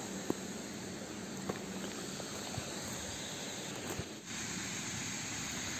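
Steady outdoor background hiss with a few faint ticks; it dips briefly about four seconds in, then carries on slightly louder.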